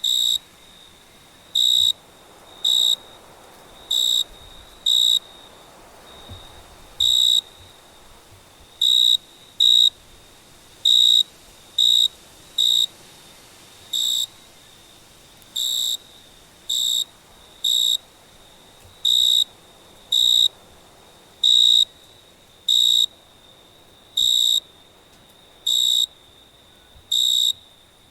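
Cricket chirping: short, high, pure-toned chirps roughly once a second at uneven spacing, over a faint steady trill at the same pitch.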